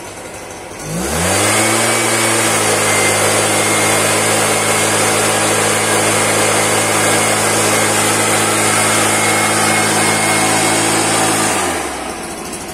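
Stihl SR 5600 backpack mist blower's two-stroke engine throttled up from idle about a second in, held steady at full speed with a strong rush of air from the blower tube, then dropped back to idle near the end.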